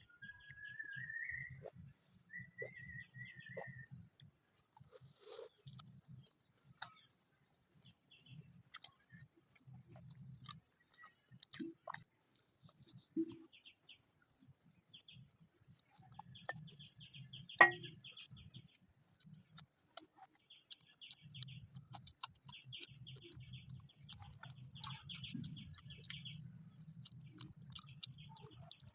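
Chewing and crunching of fried samosas, with scattered sharp crunch clicks and birds chirping in the background at times. A single sharp click a little past halfway is the loudest sound.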